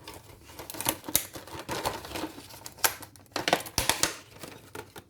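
Irregular clicks, taps and light rustling of hands handling kitchen items, a dozen or so sharp sounds scattered unevenly through.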